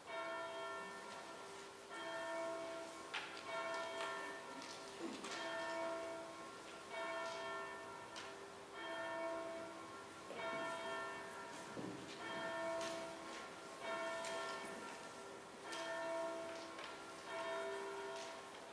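Church bells ringing, with a stroke about every second on a few different pitches, each note ringing on into the next.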